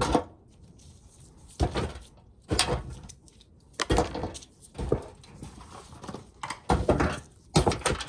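Dry ears of corn being dropped one at a time into an ice cream pail: six uneven knocks with a dry rustle, roughly one a second.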